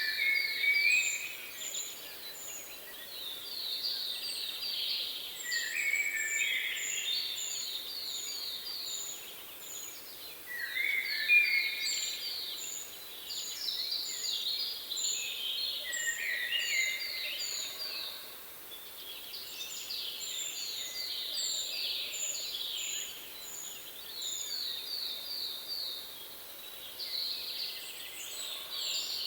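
Several songbirds singing at once: repeated runs of quick, rapidly repeated notes, with strings of thin, very high short notes above them, going on throughout.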